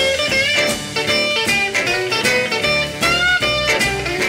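Background music led by guitar, in a blues style, with some notes bending in pitch.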